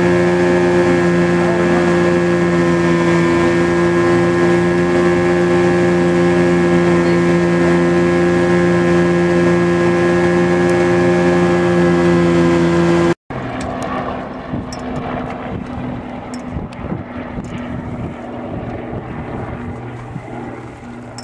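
A pontoon boat's outboard motor runs at a steady cruising speed. About 13 seconds in, the sound cuts off abruptly. It comes back quieter, with the motor fainter and a few light clicks.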